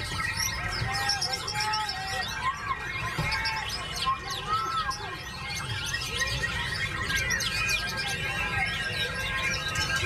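White-rumped shama singing in a cage amid a dense chorus of other songbirds: many overlapping chirps, trills and short arched whistles.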